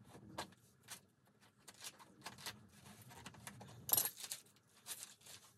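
Bamboo shoot husk being slit with a knife and peeled back by hand: short, scattered crackles and rustles of the tough outer sheaths tearing, the loudest about four seconds in.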